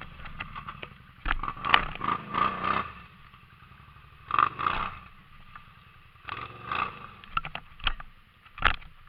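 ATV engine running, with irregular loud bursts of clatter and scraping several times.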